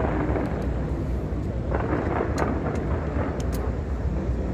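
A dense barrage of fireworks explosions blurring into a steady deep rumble, with a few sharp high crackles around the middle.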